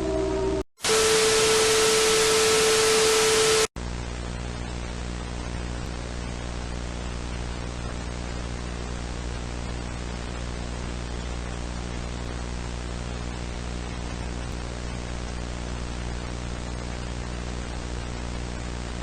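Falling tones fade out, then after a brief cut comes a loud burst of broadcast static with a steady tone through it for about three seconds, which cuts off abruptly. A steady low electrical hum with faint hiss follows.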